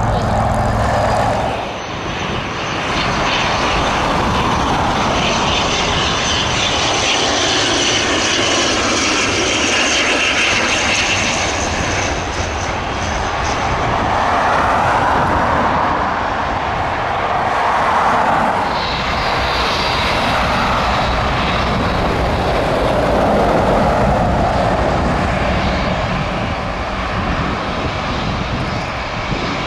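Jet airliner engines, loud and steady for the whole stretch, a rushing noise with a high whine that drifts in pitch on top.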